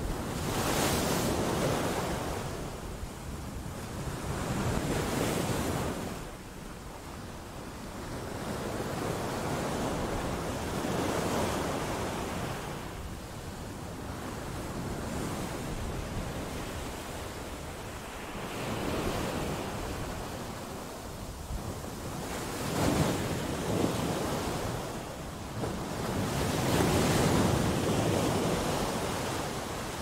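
Sea waves breaking against rocks: surf surges in and drains away every few seconds in rolling swells, with a couple of sharper splashes about two-thirds of the way through.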